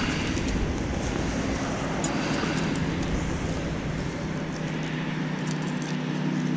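A motor vehicle's engine hum that grows louder toward the end, over a steady rumble and a few light clicks.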